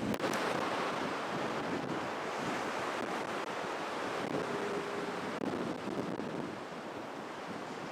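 Storm waves surging and breaking along the seawall, with gale-force wind gusting and buffeting the microphone.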